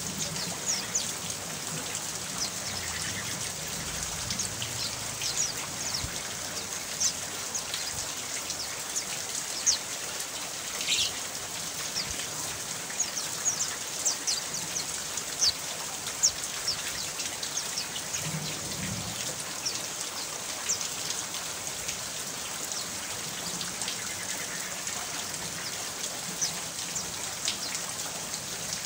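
Steady rain falling, an even hiss with many short high drips and plinks of water scattered through it.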